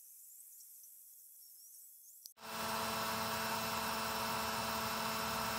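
Faint hiss for about two seconds, then abruptly a DIY CNC router's spindle running with the end mill cutting an aluminium plate: a steady whine with several held tones over a grinding noise.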